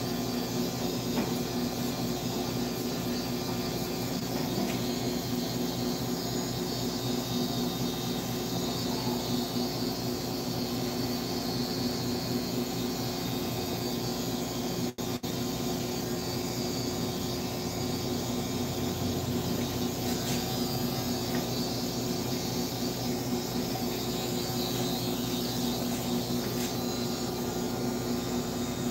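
Electric hair clipper running with a steady hum, with a brief break about halfway through.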